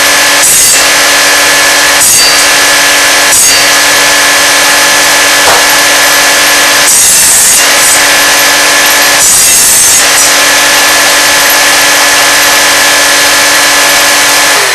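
Buzz saw (cordwood saw) running, its circular blade spinning with a steady hum and ring, as it cuts through pieces of pole wood for firewood. There are short cuts about a second and about two to three seconds in, and longer cuts around seven seconds and nine to ten seconds in. The sound cuts off suddenly at the end.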